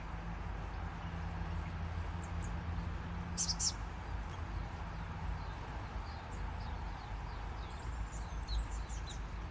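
Small birds chirping: a pair of sharp, high chirps about three and a half seconds in, then scattered soft chirps near the end, over a steady low rumble.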